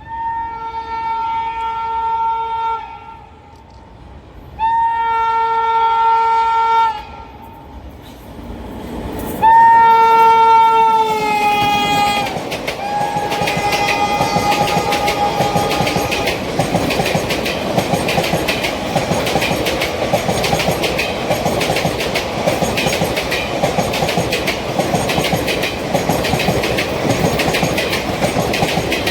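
WAP7 electric locomotive sounding its shrill horn in three long blasts, the third falling in pitch at its end. Then a rake of ICF coaches passing, with a steady clickety-clack over the rail joints.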